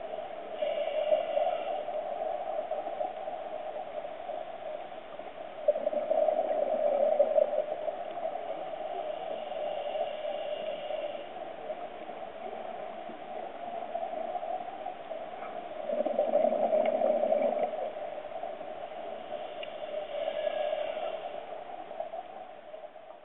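Underwater noise of open-circuit scuba breathing: a regulator hisses on the inhale and exhaled bubbles gurgle, the swells recurring every few seconds over a steady rushing noise.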